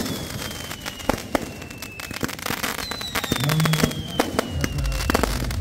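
Fireworks going off at close range: ground fountains spraying and shots firing, with dense crackling and sharp pops. Two long whistles slide slowly down in pitch, one at the start and one about three seconds in, and a low rumble comes in near the end.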